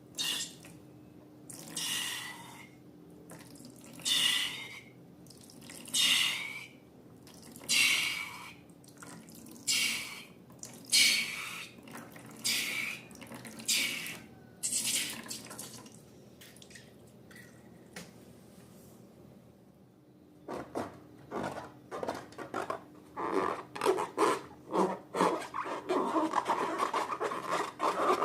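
Liquid slime being squeezed and poured out in a series of wet squelches, about one every two seconds. After a short pause comes dense, sticky crackling and clicking as the slime is stirred and kneaded.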